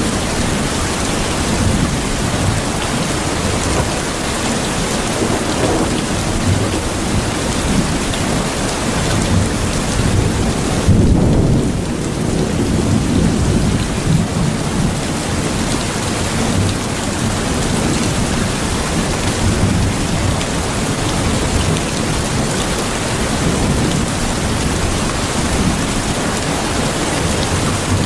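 Steady heavy rain falling. About eleven seconds in, a low rumble of thunder swells for a few seconds.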